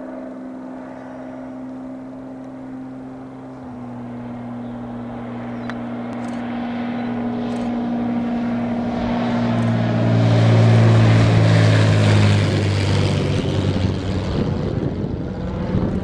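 Beech A36 Bonanza's six-cylinder piston engine and propeller droning on landing approach. It grows louder as the plane flies overhead, loudest about ten to twelve seconds in, then the drone drops in pitch and gives way to a rushing sound as it passes away.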